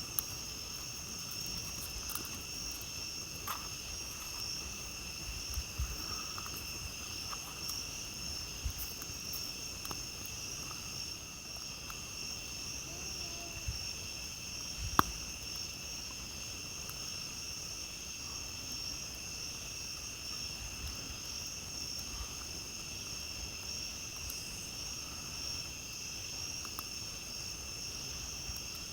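Night insects chirring steadily at several pitches, over a campfire crackling with scattered pops; one sharp pop about halfway through.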